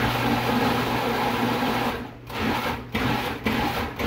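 Food processor running, pureeing a soup of roasted tomatoes and peppers with broth. It runs for about two seconds, then comes in several shorter pulses with brief stops between them.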